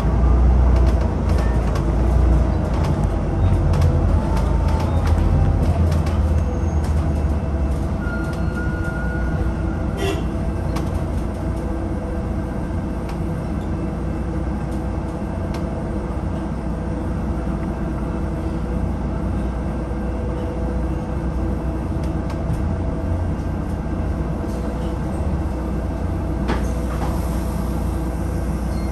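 Inside a moving bus: steady engine drone and road rumble, heavier in the first few seconds, with scattered clicks and rattles.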